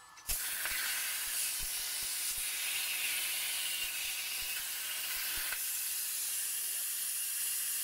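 CNC plasma cutter torch cutting a circle in steel plate: the arc strikes suddenly with a sharp pop and runs as a loud, steady hiss. About five and a half seconds in the arc goes out and the sound drops to a lighter hiss of air through the torch.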